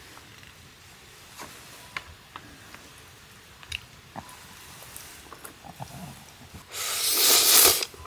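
Wooden chopsticks clicking against a metal mess tin while ramen noodles are lifted, then a loud slurp of the noodles lasting about a second near the end.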